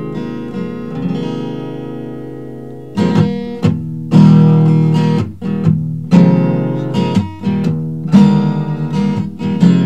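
Acoustic guitar playing an instrumental break in a song. Chords ring softly at first, then harder strummed chords begin about three seconds in.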